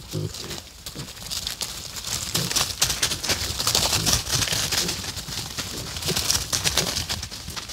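Dry leaves, grass and twigs rustling and crackling as piglets trot and root through forest leaf litter.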